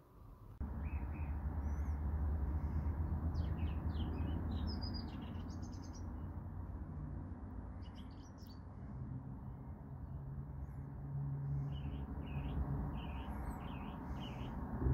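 Small birds chirping in short calls on and off, over a steady low rushing noise that starts abruptly under a second in.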